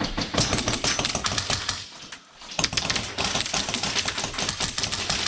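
Airsoft gun firing long bursts of rapid full-auto clicks, with a brief break about two seconds in.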